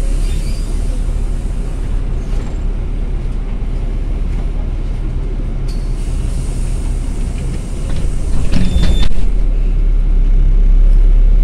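Interior of a moving LiAZ 5292.22 city bus: a steady low engine and road rumble, with a short burst of rattling and a brief squeak about three quarters of the way through, after which the rumble grows a little louder.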